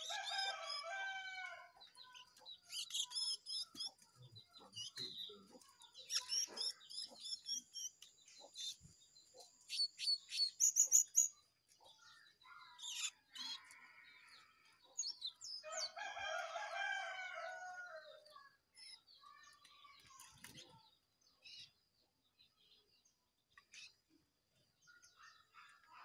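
Small birds chirping and twittering, with a loud, fast run of chattering notes about ten seconds in, over a faint steady high tone. A rooster crows near the start and again about sixteen seconds in.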